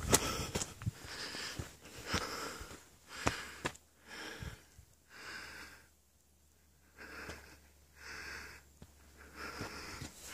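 A hiker breathing hard close to the microphone from the exertion of the walk, a loud breath about every second with a short pause about midway. Footsteps on a dirt trail tap underneath.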